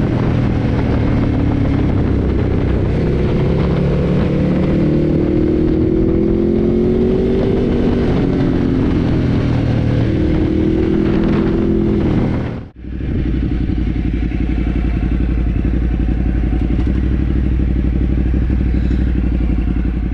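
Ducati Multistrada 1200's L-twin engine under way, its pitch rising and falling with the throttle. After a sudden break about 13 seconds in, the engine runs steadily at low revs with an even, fast pulse, as at idle.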